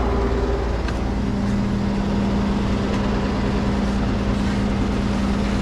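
Tow truck engine running steadily at idle, with a steady hum that comes in about a second in.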